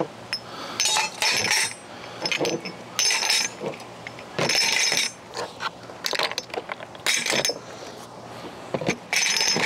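Small empty glass bottles clinking and clattering against each other as they are loaded by hand into a plastic tub, in about five bursts a second or two apart.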